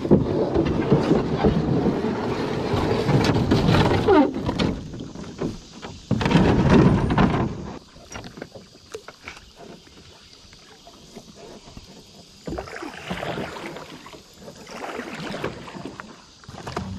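Handling and water noise aboard a small fishing kayak: a loud rumbling rustle with knocks through the first half, dropping to a quieter wash about eight seconds in and picking up again near the end. No motor is heard.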